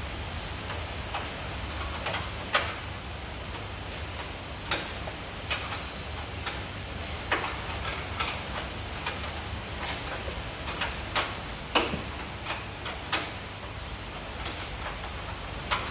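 Wascator FOM 71 laboratory washing machine running: a steady low hum with irregular light clicks and ticks, about one or two a second.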